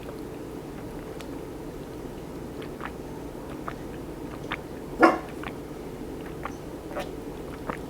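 Close-up chewing with small wet mouth clicks against a steady low room hum, and one short louder sound about five seconds in.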